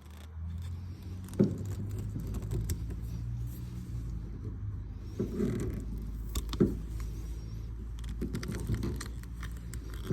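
Side cutters gripping and working at a screw lodged in a tire tread: scattered metallic clicks and scrapes, two sharper ones about 1.5 s and 6.5 s in, over a low steady rumble.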